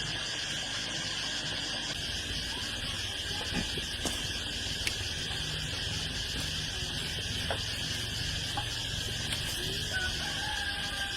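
Steady insect chorus of crickets or cicadas, with a few light knocks in the middle and a faint tone near the end.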